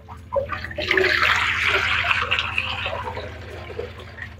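Water pouring from a fish pond's PVC outflow pipe into a plastic bowl: a steady splashing rush that starts about half a second in and eases off near the end.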